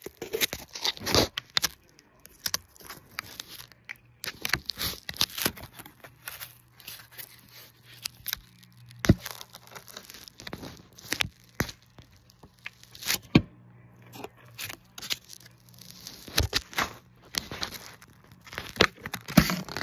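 Irregular crackling, scraping and rustling of handling close to a phone's microphone, with a low steady hum for several seconds in the middle.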